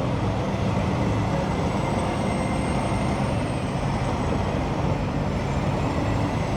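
Steady low engine rumble and traffic noise of a busy city street.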